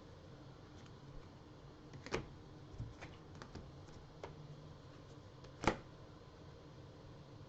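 Trading cards being sorted and set down on a table: scattered light taps and clicks, with a sharper knock about two seconds in and a louder one about three and a half seconds later.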